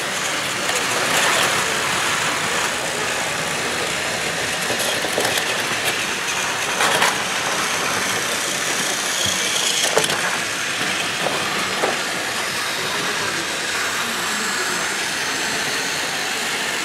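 Several battery-powered Plarail toy trains and a suspended monorail running on plastic track at once: a steady whirring and rattling of small motors and wheels, with a few sharp clicks along the way.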